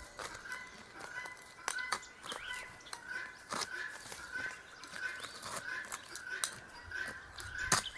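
A bird calling a short chirp over and over at an even pace, about twice a second, with scattered sharp clicks and rustles mixed in.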